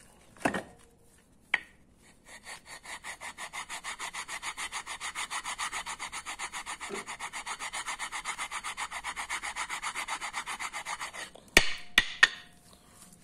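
Road House front brake pads rubbed face to face, making rapid even scraping strokes at about eight a second as the soft friction material wears away into black dust. A couple of knocks come first, and a few sharp clacks near the end.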